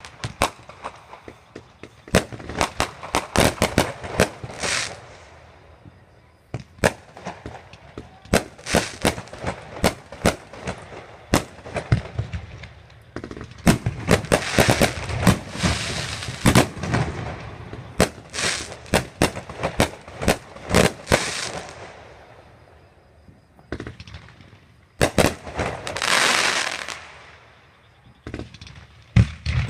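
Fireworks going off: rapid sharp bangs and cracks in quick succession, broken several times by longer hissing, crackling stretches.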